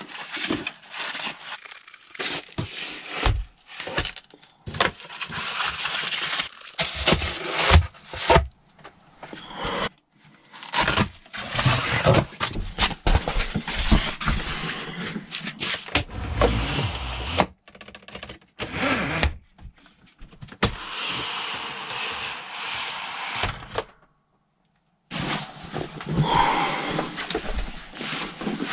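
Rustling and crinkling of foil bubble-wrap insulation screens being handled and pulled from a camper van's windows, with irregular knocks and clatter in a small wooden interior.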